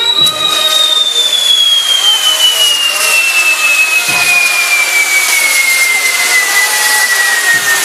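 Fireworks on a castillo burning with a steady hissing rush, and one long whistle that falls slowly and evenly in pitch from high to lower.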